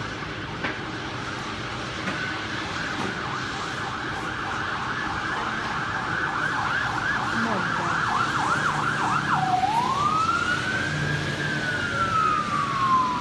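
Emergency vehicle siren on its fast yelp, growing louder, then switching about ten seconds in to a slow wail that rises and then falls, over a steady rain hiss.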